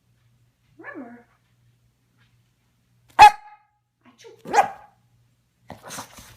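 A dog gives a short whine about a second in, then barks twice, the first bark at about three seconds being the loudest and the second about a second and a half later; a few short breathy sounds follow near the end.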